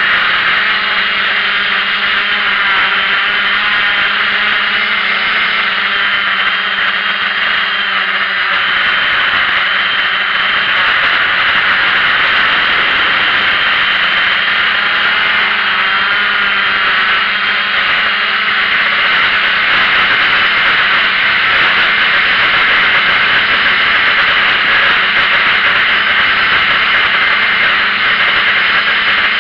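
Small multirotor drone's electric motors and propellers heard from its own onboard camera: a loud, steady high whine of several close pitches that waver slightly as the motor speeds adjust, over a low hum.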